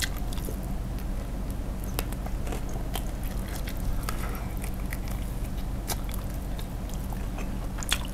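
Close-up chewing of crispy fried chicken coated in spicy sauce: a bite, then steady mouth chewing with scattered crunches, over a faint low hum.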